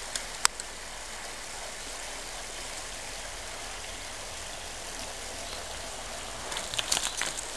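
Steady outdoor hiss with one sharp click about half a second in; near the end, a run of clicks and rattles as a bicycle rolls onto a wooden footbridge.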